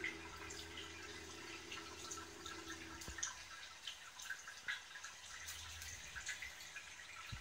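Saltwater aquarium water dripping and trickling: irregular small plops and ticks, over a faint low hum that stops about three seconds in.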